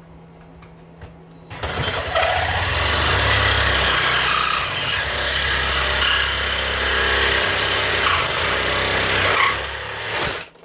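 Electric power tool running and cutting into the hedge trimmer's riveted blade assembly, to get through rivets that would not punch out. It starts about a second and a half in, runs steadily for about eight seconds and stops just before the end.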